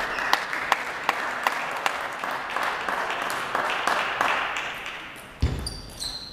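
Spectators clapping and applauding a won table-tennis point, with sharp clicks of the celluloid ball off bats and table heard through it. The applause dies away about four to five seconds in, as play resumes.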